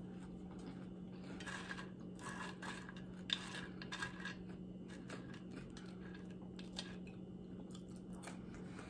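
Quiet eating sounds: chewing and small clicks of long acrylic fingernails against a plate as food is picked up by hand, with a sharper click about three seconds in, over a steady low hum.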